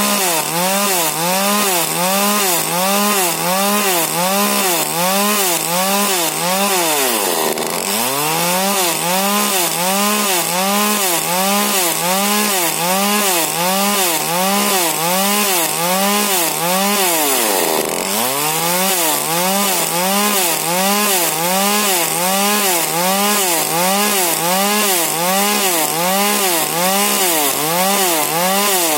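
Husqvarna 40cc two-stroke chainsaw with a modified exhaust cutting wood: the engine pitch rises and falls about once a second as the load on the chain varies. Twice, about a quarter of the way in and again past the middle, the engine sags deeply under load before climbing back.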